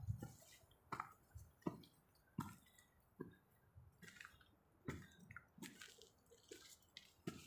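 Faint, irregular crunches and rustles, about one a second: a hiker's footsteps on a steep dirt trail, brushing through shrubs while climbing.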